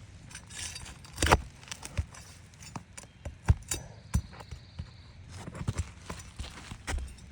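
Roofing nails being pried out of asphalt shingles: a string of sharp metal knocks and scrapes, the loudest about a second in.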